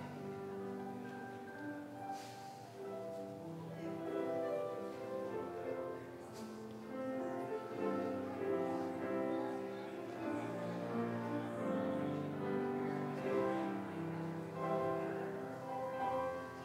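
Slow instrumental prelude music on a keyboard instrument, with chords changing every second or so.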